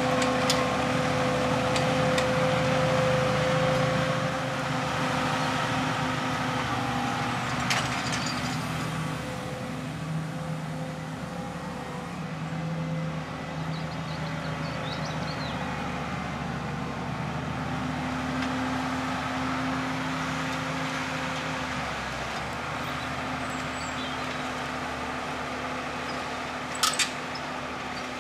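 Valtra T 214 tractor's diesel engine running steadily under load while pulling a plough. A sharp click comes about eight seconds in, and two more close together near the end.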